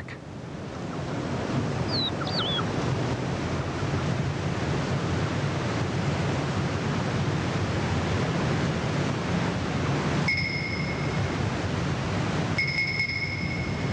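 Steady rushing outdoor noise, with a short chirp about two seconds in and two held high whistling tones near the end.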